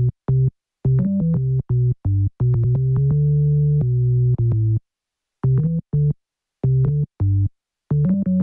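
Synthesizer music for the end credits: short, clipped keyboard notes in a bouncy pattern, each cut off into dead silence, with a longer held note a little past the middle.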